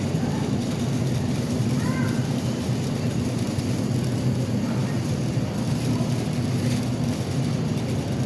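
Steady low droning rumble of a large store's background noise, even in level throughout, with faint distant voices now and then.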